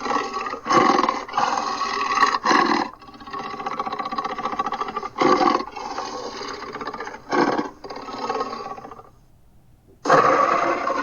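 Titanus Behemoth monster sound effect: a string of roars and growls, with several sharp roars in the first three seconds and a long pulsing growl after them. It breaks off about nine seconds in, and a loud roar starts again near the end.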